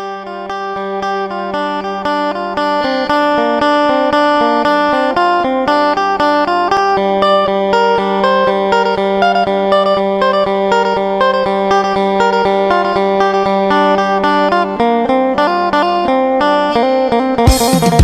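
Phin (Isan plucked lute) music: a fast picked melody over a steady drone note, fading up over the first few seconds. Drums come in near the end.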